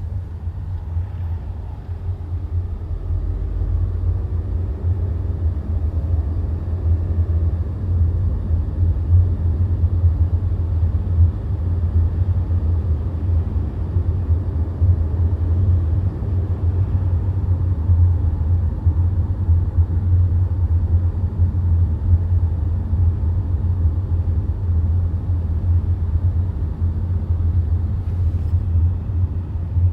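2009 Volkswagen Tiguan at low speed: a steady low rumble.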